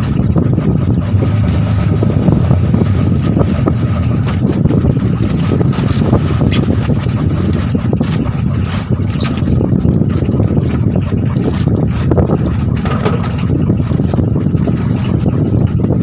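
Outrigger fishing boat's engine running steadily, a loud, even low rumble with a faint steady whine, mixed with wind and the slap of rough sea.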